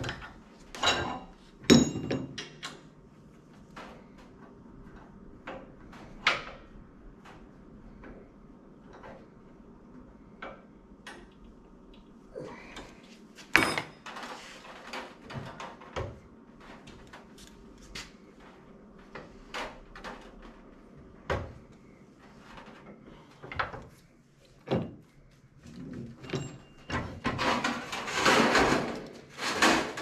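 Sheet metal being handled and clamped in a hand-operated sheet metal brake: scattered clacks and knocks of metal, the sharpest about 2 s in and just before the middle, with a longer scraping rub of sheet sliding near the end.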